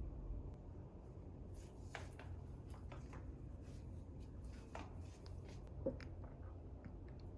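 Faint scattered light clicks and taps over a steady low hum, with one sharper tick about six seconds in.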